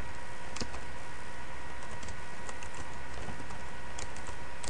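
Computer keyboard keys tapped in short irregular runs, sharp clicks over a steady background hiss and hum with faint constant whine tones.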